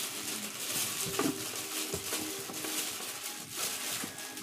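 Steady background hiss of a busy indoor room, with a few faint clinks and a light click about a second in.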